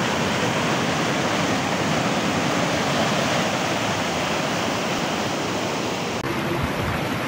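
Muddy flash-flood water rushing and churning over the ground, a steady loud rush of turbulent water. About six seconds in the sound changes abruptly and low thumps come in.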